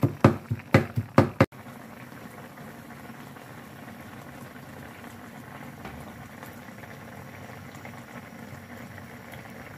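Braising sauce boiling hard around round scad in a pan: a quick run of loud pops in the first second and a half, then, after a sudden cut, a steady bubbling.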